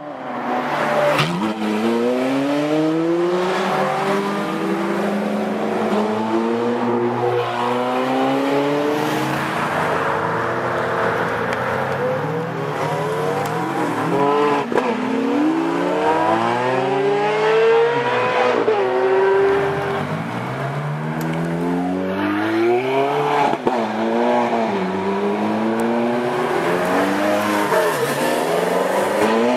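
Ferrari 430 Scuderia V8 accelerating hard, its pitch climbing through each gear and dropping back at every upshift, over and over, with a couple of sharp cracks along the way.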